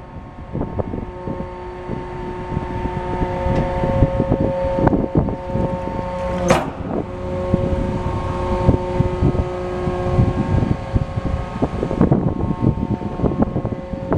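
The hydraulic packer of a Loadmaster rear-loader refuse body cycling its sweep panel down through the hopper. A steady hydraulic whine runs over the truck's diesel engine, with repeated metal knocks and one sharp bang about halfway through, after which the whine changes pitch.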